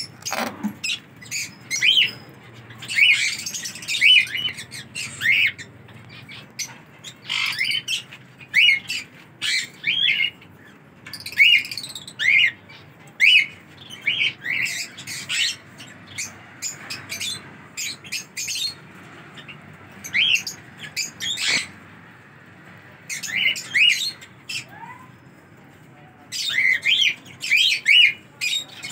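Rose-ringed parakeets calling: short, sharp chirps and squawks, many in quick succession, coming in bursts with brief quieter gaps between them.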